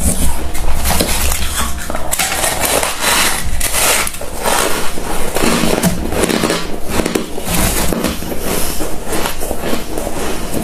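Freezer frost being scraped loose with fingers and crunched while chewed: a dense, irregular run of crackling crunches.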